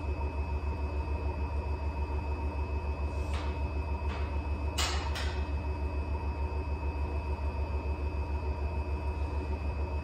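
Electrolux W75MP commercial washer-extractor in its extended final extraction spin: a steady low hum with a fast pulsing throb and a constant high motor whine. A few short knocks sound in the middle, the loudest about five seconds in.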